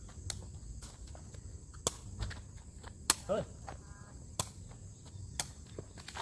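Takraw ball being kicked around a circle of players: a series of sharp strikes about a second or so apart, the loudest near the middle.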